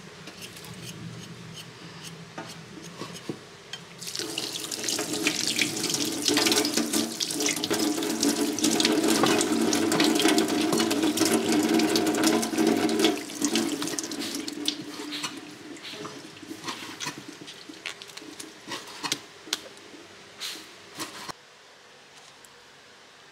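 Tap water running into a stainless steel sink and splashing over produce held under the stream. It starts about four seconds in, after a few light knife scrapes on a root being peeled, and fades over the last several seconds.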